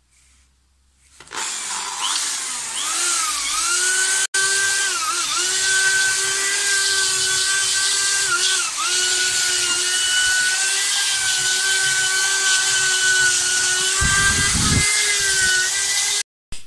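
Electric drill spinning an abrasive flap wheel and sanding wood around a knot hole in a board. The motor starts about a second in and runs with a steady whine that dips in pitch for a moment several times as the wheel bites into the wood, then stops abruptly near the end.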